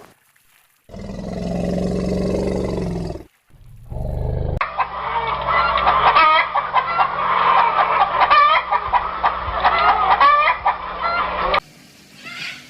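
A flock of domestic fowl calling: many short, overlapping, wavering calls that start about four and a half seconds in and stop suddenly near the end. Before them come a few seconds of a low, steady sound.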